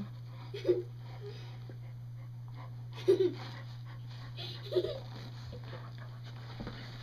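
Two golden retrievers play-fighting at close quarters over a tennis ball, giving three short vocal sounds about a second and a half apart. The loudest comes about three seconds in, over a steady low hum.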